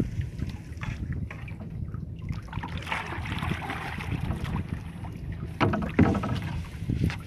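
A wet fishing gill net being hauled over a boat's gunwale, with water splashing and dripping off the mesh. The loudest splashes come about three and six seconds in, over a steady low rumble.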